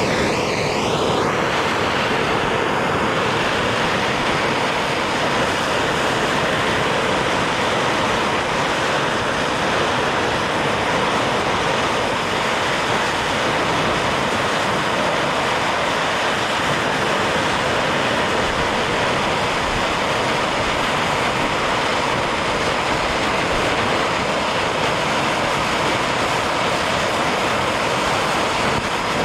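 Bernzomatic trigger-start propane torch burning with a steady, even hiss, its flame heating aluminum sheet to melt in an aluminum brazing rod. It cuts off suddenly at the end.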